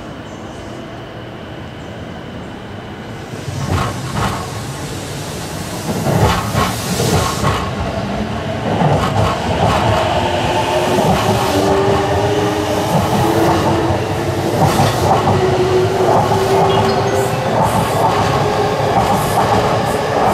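JR East E233-1000 series electric train pulling out and accelerating past, with wheels knocking over rail joints. From about ten seconds in, the traction motor whine rises in pitch as the train picks up speed.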